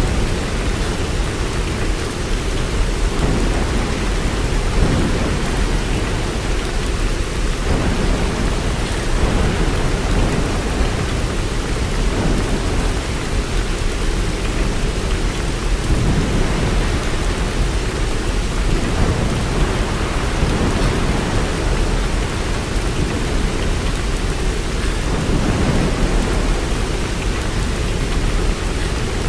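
Steady heavy rain, with a low rolling rumble of thunder that swells and fades underneath it.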